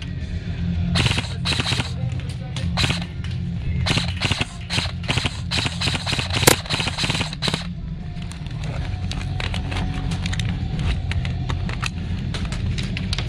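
Airsoft electric guns firing rapid full-auto bursts: several short bursts in the first three seconds, a long run of fire from about four to seven and a half seconds in, then scattered shots, over background music.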